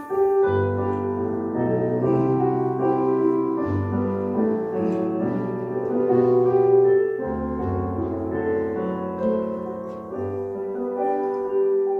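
Piano or keyboard playing the introduction to a worship song: held chords over a low bass note that changes every few seconds, with no singing yet.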